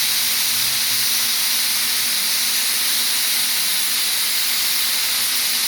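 Oxy-fuel cutting torch on a Linde Cut-Line rail-mounted track burner, hissing steadily and loudly as its oxygen jet cuts a 45-degree bevel through 1-1/4 inch steel plate.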